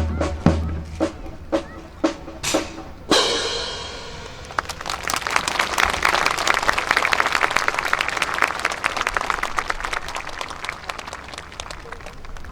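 A few sharp beats, ending in a louder hit about three seconds in, then a crowd applauding that swells and then slowly thins out.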